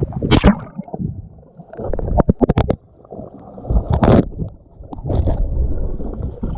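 Water splashing and sloshing close to the microphone in uneven surges, with a few sharp slaps and low rumbling buffets.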